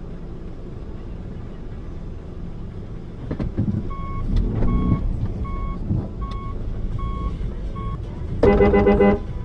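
Car interior rumble of engine and road, with a run of short, evenly spaced electronic beeps, about two a second, starting about four seconds in. Near the end a car horn sounds loudly for just under a second.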